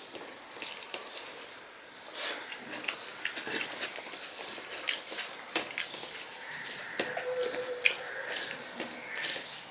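Fingers kneading cooked rice and mashed vorta on a steel plate, a wet squishing broken by many small sharp clicks, mixed with wet chewing and lip smacks.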